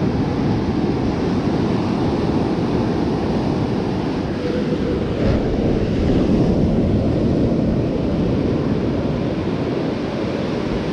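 Ocean surf breaking and washing up the beach, mixed with wind buffeting the microphone, a steady, even rush of noise throughout.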